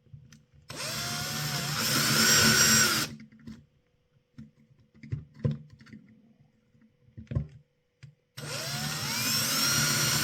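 Electric drill drilling out the rivets of a die-cast model bus: one run of about two and a half seconds, then a second starting near the end, each opening with a rising whine as the drill spins up. Small clicks and knocks of handling come between the two runs.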